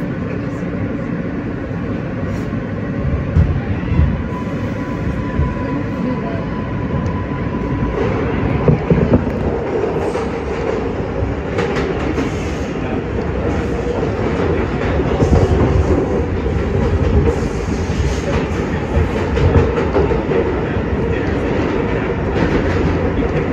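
R143 subway car in motion, heard from inside the car: a steady rumble of wheels and motors. Short clicks come from the wheels passing over the rail joints, a thin whine is present for a few seconds, and the sound grows louder about eight seconds in.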